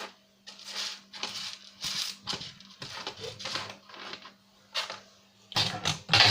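Irregular scraping, rustling and light clattering of plastic parts and wiring being handled and pulled apart during a DVD player teardown, a few noises a second over a faint steady hum, with a louder scrape near the end.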